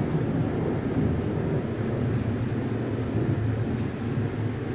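Rolling thunder rumbling low and long, easing off slowly.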